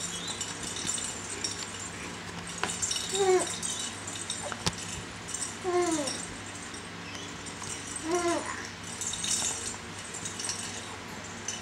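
A baby's short excited squeals, three of them, each falling in pitch, with a few light clicks and rattles from the bead-filled clear plastic ball toy he is batting.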